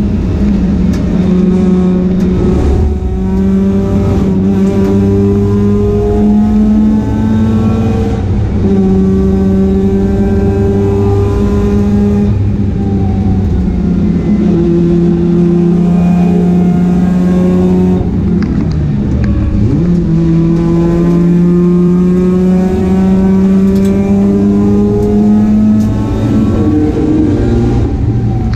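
Mazda RX-8 race car engine at full throttle, its note climbing through each gear and dropping back at every upshift. Near the middle it falls lower, as the car brakes and shifts down, then pulls up through the gears again.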